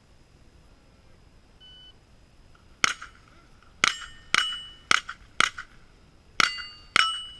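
A shot-timer beep, then seven rapid shots from a .22 rimfire rifle, each followed by the short metallic ring of a steel target plate being hit. The first shot comes about a second after the beep, and the rest follow about every half second.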